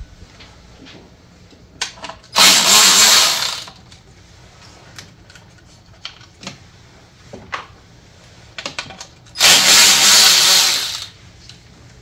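Cordless power tool run in two bursts of about a second and a half, some seven seconds apart, spinning out 10 mm bolts, with light clicks and knocks of handling between.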